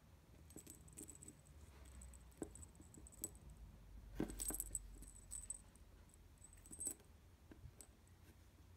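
Small brass jingle bells on rooster charm keychains tinkling faintly as fingers handle them, with light clicks of the metal charms. The clearest jingles come about four to five seconds in and again near seven seconds.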